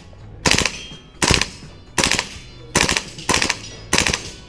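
VFC/Umarex MP5A5 V2 gas blowback airsoft submachine gun firing three-round bursts in quick succession, about one burst every two-thirds of a second.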